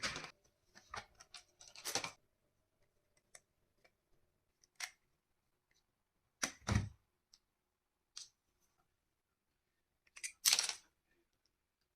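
Handling noises of a plastic toy pistol: a string of separate clicks and short scrapes, with a dull knock about six and a half seconds in and a louder scrape about ten and a half seconds in.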